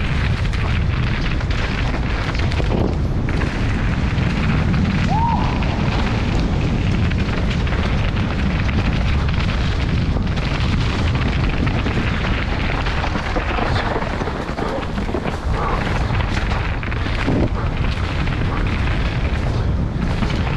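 A mountain bike descending a dirt forest trail at speed, heard from a helmet camera. Wind buffets the microphone with a continuous deep rumble, while the tyres and the rattling bike give a stream of small knocks and clatters over the rough ground. A brief squeak comes about five seconds in.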